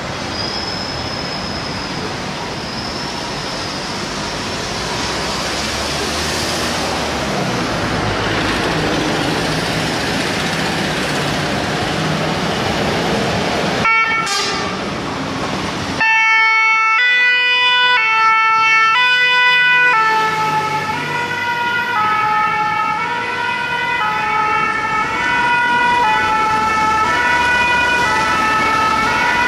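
Renault fire engine pulling out, its engine running and revving up, then its two-tone French 'pin-pon' siren starting about halfway through and alternating between a high and a low note about once a second.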